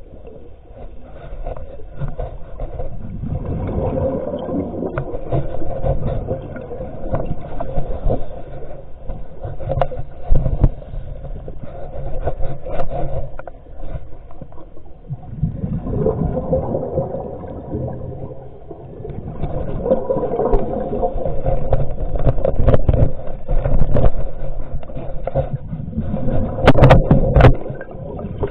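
Muffled underwater rumbling and scraping that swells and fades twice, with a few sharp clicks near the end.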